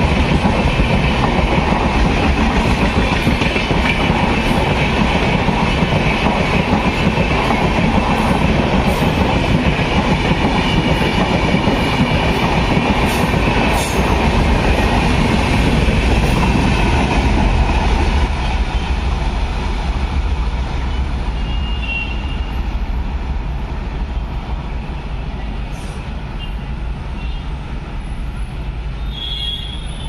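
Express passenger train's coaches rolling past close by at speed, a loud steady rush of wheels on rail. About eighteen seconds in the last coach, a luggage-brake and generator car, has gone by and the noise fades steadily as the train draws away.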